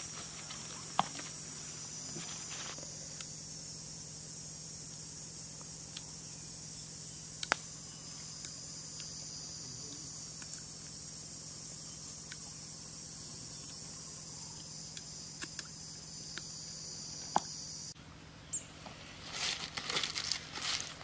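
Insects shrilling in a steady high drone, with a few sharp clicks and taps on stones now and then. About 18 seconds in the drone cuts off suddenly, and a run of close crackling and rustling noises follows.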